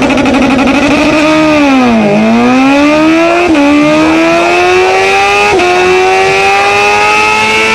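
Vehicle engine accelerating. Its pitch dips about two seconds in, then climbs steadily with two brief hitches, like gear changes.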